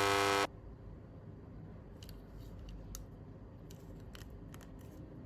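A steady tone stops abruptly about half a second in. Then faint, sharp clicks come at irregular intervals, a few a second, from small objects being handled on a work surface.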